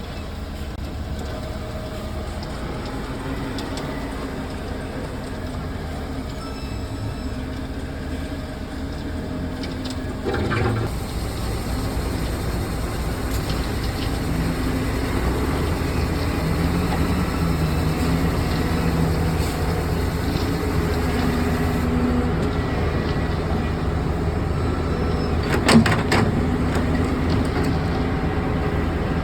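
Excavator's diesel engine running steadily, its note shifting a little, with a short clunk about ten seconds in and a sharper knock a little before the end.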